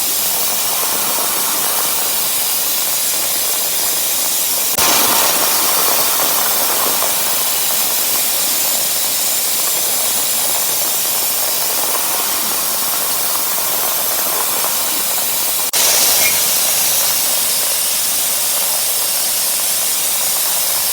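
CNC machine tool cutting: a steady, loud hiss. It jumps abruptly to a slightly louder level about five seconds in and again near sixteen seconds.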